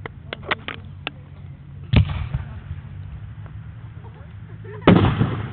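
Two loud firework bursts about three seconds apart, each followed by a rolling echo, with a few small sharp pops in the first second. A steady low hum runs underneath.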